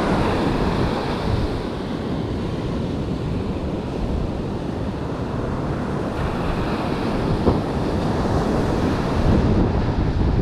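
Ocean surf breaking and washing up the beach, with gusty wind buffeting the microphone. A single short knock sounds about two-thirds of the way through.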